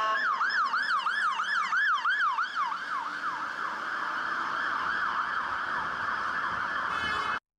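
UK fire engine siren in yelp mode: quick rising sweeps, about three or four a second, that speed up after a couple of seconds into a fast warble, then cut off suddenly near the end.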